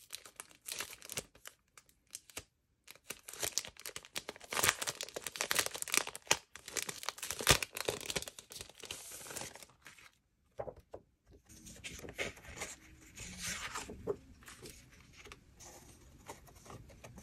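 A clear plastic sleeve around a bundle of A5 planner insert sheets being torn open and crinkled, a dense irregular crackle for most of the first ten seconds. After a short pause, fainter rustling as the paper sheets are slid out and handled.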